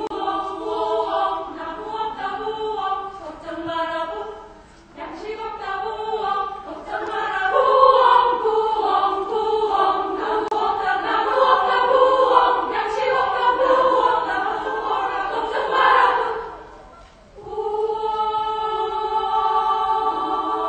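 Women's choir singing a cappella in a medley of Korean children's songs. It begins with short, rhythmic phrases broken by brief gaps, swells into fuller sustained singing, pauses about seventeen seconds in, then comes back on a held chord.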